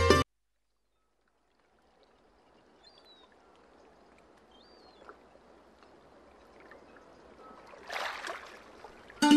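Background music cuts off abruptly, leaving a moment of silence and then faint workshop room ambience with two faint high chirps and a short rush of noise about eight seconds in; the plucked-string music returns right at the end.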